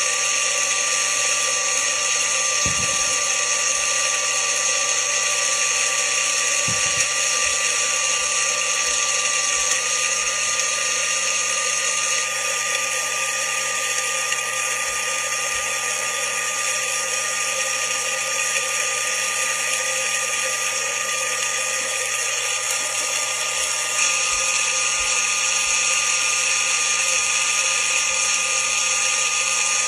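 Magic Bullet Single Shot+ blender running steadily with a high motor whine, blending soaked almonds and water into almond milk. Its tone shifts a little twice, and there are two soft knocks a few seconds in.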